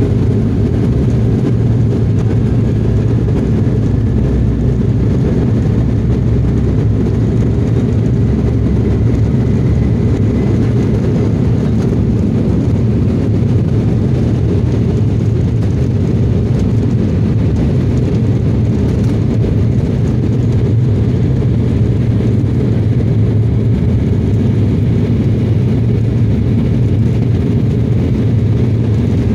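Jet airliner's engines during takeoff and climb-out, heard from inside the cabin as a loud, steady low rumble through the fuselage.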